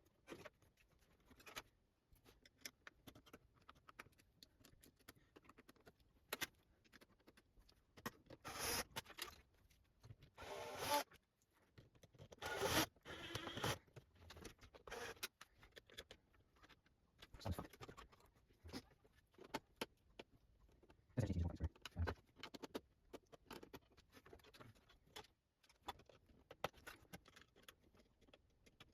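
Hands working on the casing and hard-drive mounting of a Samsung Sky+HD satellite box: scattered small clicks, scrapes and rattles of plastic and metal parts. There are louder scraping bursts about 8, 10 and 12 seconds in, and dull knocks a little after 17 and 21 seconds.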